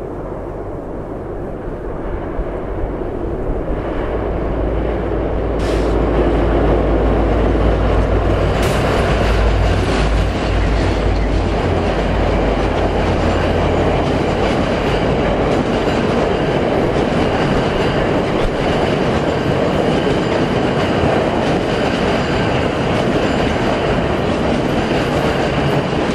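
VIA Rail passenger train passing on a steel trestle bridge overhead: a deep engine rumble from the diesel locomotive builds over the first few seconds and drops away about fourteen seconds in. After that comes the steady rumble of the stainless-steel passenger cars rolling across the bridge.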